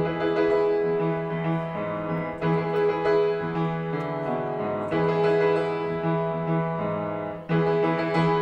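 Solo piano playing sustained chords, a new chord struck every second or so, as the instrumental outro of a song. A final chord comes about seven and a half seconds in and fades out.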